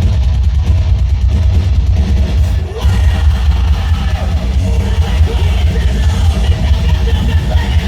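Live heavy rock band playing loud, with a heavy, pounding low end of bass and drums under electric guitar and vocals.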